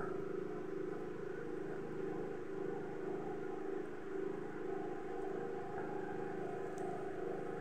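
A steady motor hum holding a few constant tones.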